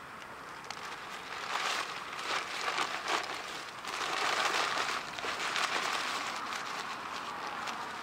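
Wood fire burning in a stainless steel fire pit, crackling with many small sharp pops over a hiss that swells about a second and a half in and again around four seconds in.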